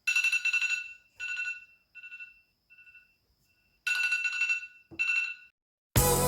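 An electronic ringing tone in repeated bursts: two loud rings, three fainter, fading ones, then two loud rings again. Music comes in near the end.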